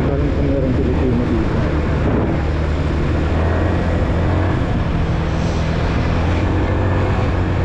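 Motorcycle engine running steadily under way, with road and wind noise.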